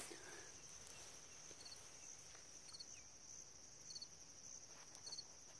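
Faint field crickets trilling steadily in the grass, with a short high chirp repeating about once a second.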